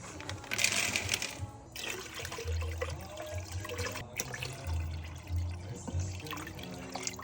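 Water running, loudest for about a second near the start, over background music.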